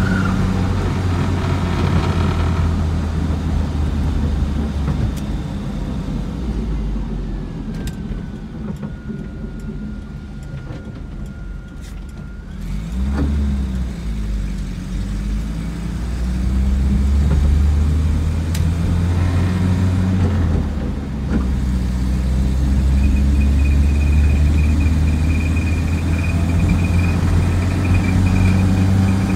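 Cabin sound of a 1987 Land Rover Defender 90 on the move: the engine and drivetrain run steadily, ease off and go quieter for several seconds midway, then rev and pull away again, running louder through the second half.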